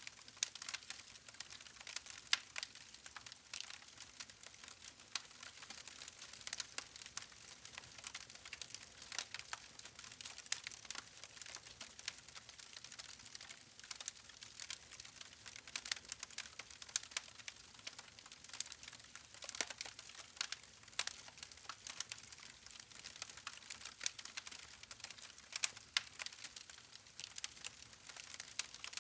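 Wood campfire crackling: irregular sharp snaps and pops from the burning logs over a soft hiss of flame, with a few louder pops scattered through.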